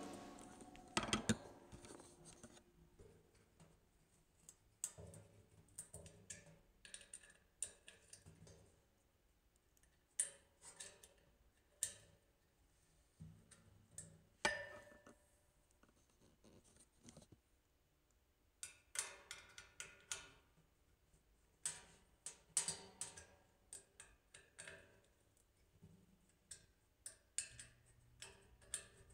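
Scattered small metallic clicks and taps as an Allen key works the set screws on stainless steel sink-leg collars and the legs knock lightly against the steel frame. About halfway through, one sharper clink rings briefly.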